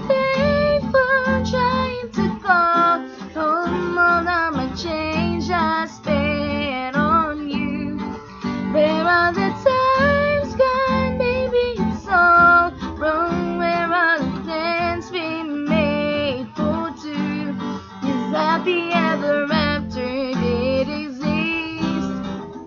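A song: strummed acoustic guitar with a female voice singing.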